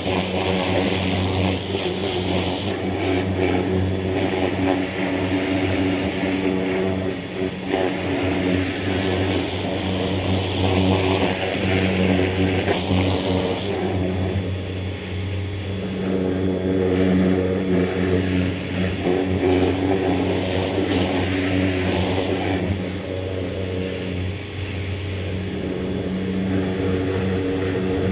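Pressure washer running steadily under a jet of water, its motor hum mixed with the hiss of the spray hitting the mower deck; the hiss swells and eases as the spray moves across the deck.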